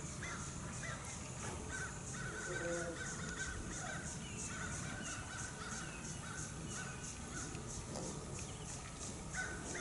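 Crows cawing repeatedly, over a steady high chirping that pulses about three to four times a second.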